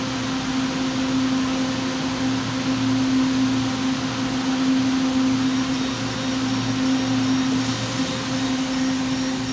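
Steady machine hum inside a standing LRT-2 train car, from its air conditioning and onboard equipment, a constant droning tone. Near the end a higher hiss and faint repeating high tones come in as the train starts to pull away.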